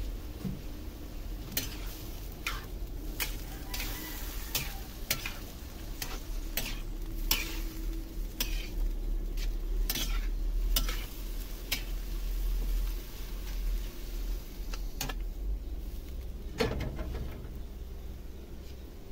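Metal spatula stirring squid in a steel wok, with repeated irregular scrapes and clacks of metal on metal over a steady sizzle. A single louder clank comes near the end.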